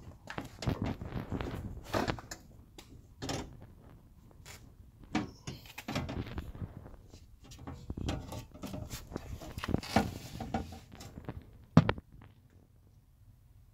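Irregular knocks, clicks and rustling from hands working on a car's rear door with its trim panel removed, ending in one sharp knock near the end.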